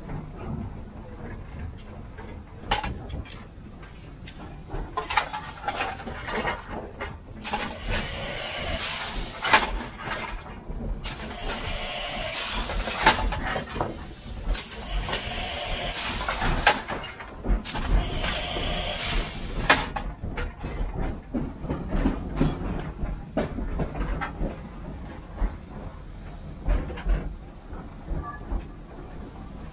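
Steam locomotive venting steam in four long hisses of about two and a half seconds each, a second or so apart, with metal clanks and knocks in the cab throughout.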